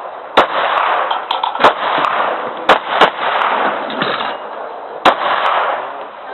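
Glock 26 9mm subcompact pistol fired five times at uneven intervals, each loud shot followed by about a second of fading echo, with a few fainter cracks in between.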